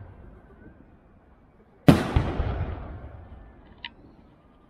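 Aerial firework shell bursting with one sharp bang about two seconds in, its boom echoing and dying away over the next couple of seconds. The tail of an earlier burst fades at the start, and the next bang comes right at the end.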